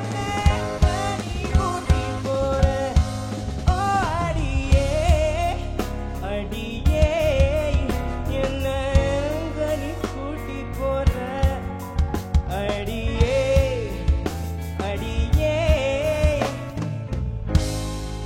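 A solo voice singing a pop song with vibrato over a band accompaniment, with a steady drum-kit beat and sustained bass.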